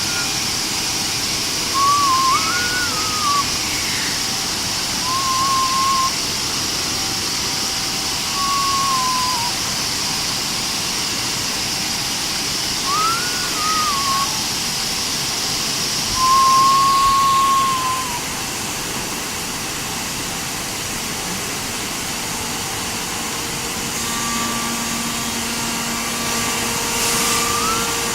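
Belt sanding unit on a 5-axis CNC machine running with a steady rushing noise, broken several times by short squeals that rise and fall in pitch. A high hiss fades out about two-thirds of the way through.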